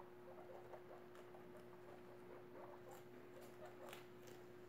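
Guinea pigs, an adult and newborn pups, eating lettuce: faint soft crunching and patter, with a few sharper ticks in the second half, over a steady faint hum.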